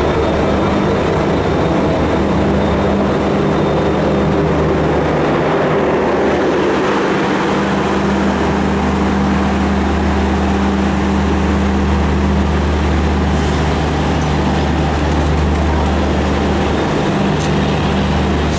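EMD WDP-4B diesel locomotive pulling a passenger train out of a station, its engine working as it passes, followed by the coaches rolling by with steady wheel-on-rail noise and a low hum.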